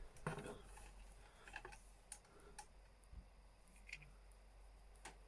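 Faint, scattered light clicks and taps of small lock parts and tools being handled on a work surface, one sharper click near the start and about half a dozen softer ones after it.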